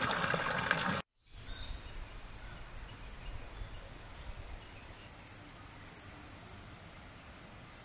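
After about a second of broad hissing noise and a sudden short drop-out, a steady high-pitched drone of insects sets in and holds, its pitch stepping slightly about five seconds in.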